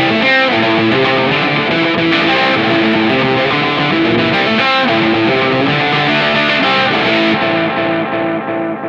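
Electric guitar music with a steady repeated note, fading out near the end.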